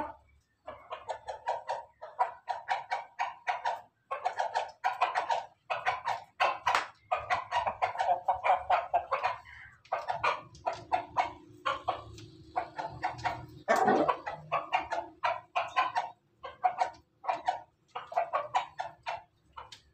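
Chickens in a coop, making long runs of quick, short, sharp sounds, several a second. A steadier low tone comes in for a few seconds past the middle and again near the end.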